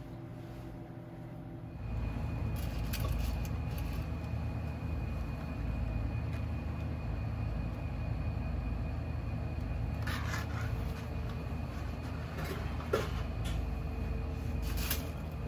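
A steady low rumble starts about two seconds in and keeps going. Over it come a few light clinks and rustles, twice around the middle and again near the end, as dry bavette pasta is handled on a metal kitchen-scale pan.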